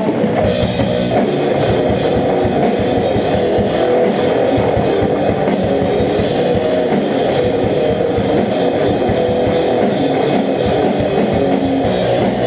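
Rock band playing loudly: a drum kit and guitars.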